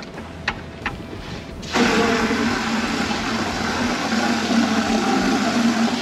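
Two light clicks, then about two seconds in a hard, steady rush of water starts suddenly with a low, even hum under it: fresh water running through a hose to flush a marine air-conditioning system.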